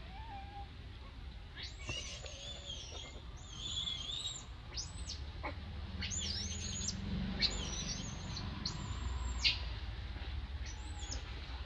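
A run of a dozen or so short, high-pitched chirping calls, each rising and then falling, over a low steady rumble.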